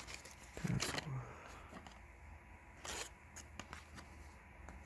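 Faint handling of paper baseball cards: a few brief scrapes and flicks as the cards slide over one another, the clearest about three seconds in.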